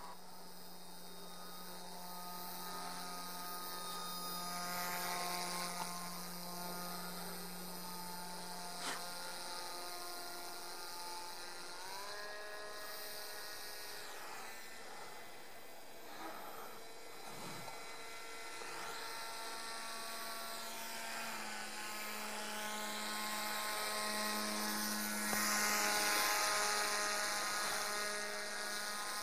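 Small electric motor and propeller of a radio-controlled model paramotor whining in flight, a steady stack of tones that steps up in pitch about twelve seconds in, then sweeps up and down several times, loudest a few seconds before the end.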